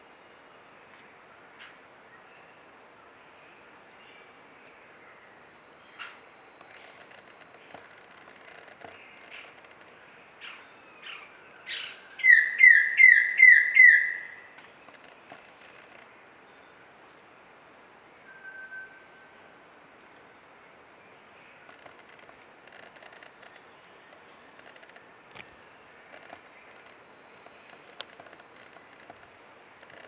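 A steady, high, pulsing insect chorus, broken about twelve seconds in by a loud call of about five quick notes in a row from a male Wilson's bird of paradise.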